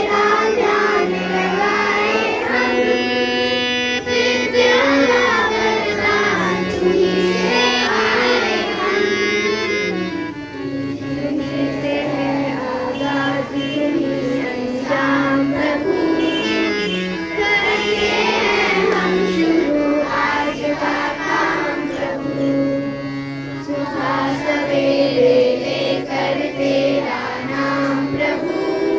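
A school music band performing a song: voices singing a melody with instrumental accompaniment.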